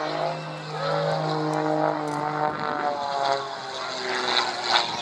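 Pitts S2S aerobatic biplane's six-cylinder piston engine and propeller droning in flight, the pitch steady at first and then gradually dropping from about two seconds in.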